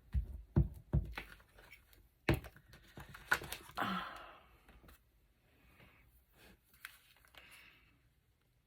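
Paper being handled and pressed down on a craft table: a quick run of light taps and clicks over the first few seconds, with short rustles, then fainter paper rustling.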